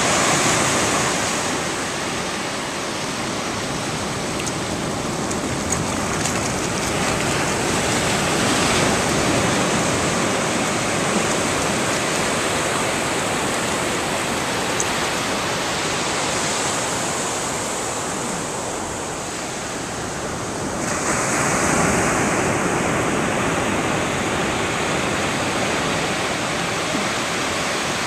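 Ocean surf breaking on a sandy beach: a steady rush of waves that swells louder several times as waves come in.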